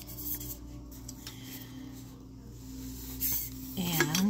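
Soft background music with light rubbing and tapping as a thermos-style water bottle is handled, and a brief voice near the end.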